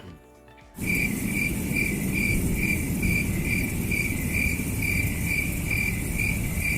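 Crickets chirping: an even, steady chirp about two and a half times a second over a low background hiss, which cuts in abruptly about a second in and cuts off just after the end.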